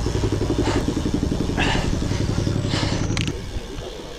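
Hard panting from a road cyclist worn out at the top of a steep climb, about one breath a second. Under it, a low engine rumble cuts off about three seconds in.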